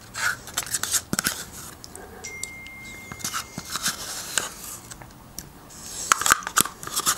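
Metal teaspoon scraping and clicking against a small plastic yogurt cup, with close-up mouth sounds of eating yogurt off the spoon. The sharpest clicks bunch together near the end.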